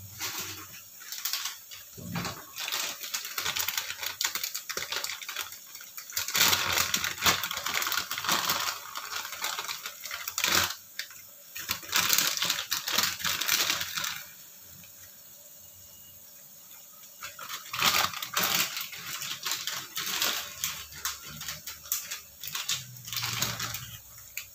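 Cooking handling sounds: irregular clicks, scraping and rustling as palm sugar and kaffir lime leaves go into a pan of chicken in sweet soy sauce, with a quieter pause about two-thirds of the way through.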